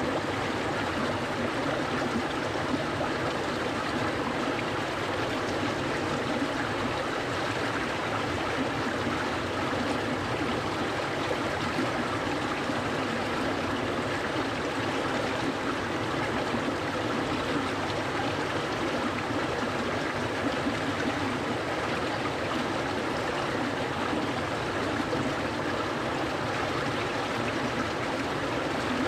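A clear, cold mountain stream flowing and babbling over rocks, steady and unbroken.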